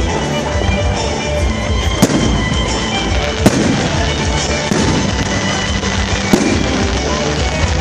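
Fireworks display going off: a continuous deep rumble of bursts, with sharp loud bangs every second or two. Music plays through it.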